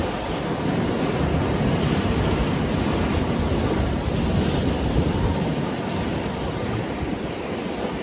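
Rough surf breaking and washing continuously along a rocky shore, a steady, even rush of water with no distinct single crashes.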